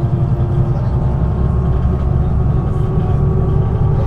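Diesel engine of a MAN NG 313 articulated city bus running steadily, with a deep rumble under a hum of several steady tones.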